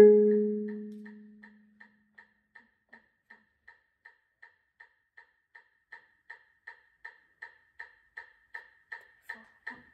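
A marimba chord struck with yarn mallets, ringing out and dying away over about a second and a half. Then an even, clicking beat, nearly three clicks a second, starts faint and grows steadily louder.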